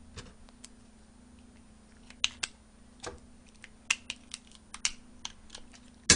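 Scissors snipping through a cooked lobster's leg shell: a run of short, sharp, irregular clicks and cracks, most of them in the second half.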